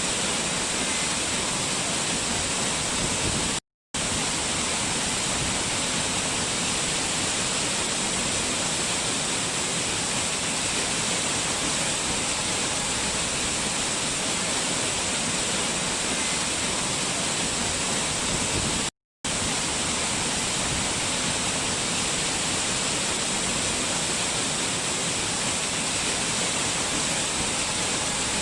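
Waterfall rushing in a steady, even roar of water. It cuts out completely for a split second twice, about four seconds in and again near nineteen seconds.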